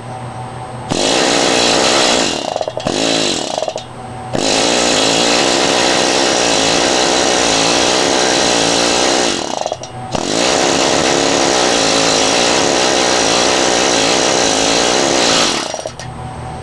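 Air-powered planishing hammer running, its hammer pounding rapidly on 12-gauge solid copper THHN wire to crack the insulation off. It runs in two short bursts, then two long runs of about five seconds each with a brief stop about ten seconds in.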